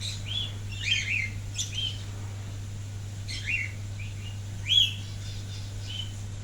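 Rainbow lorikeet giving a run of short, high chirps and squeaky calls at irregular intervals, the loudest about five seconds in, over a steady low hum.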